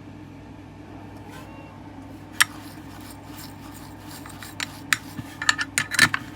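Sharp clicks and clatters of small tools and parts being handled and set down on a soldering bench. There is one click about two and a half seconds in and a quick cluster near the end, over a steady low hum.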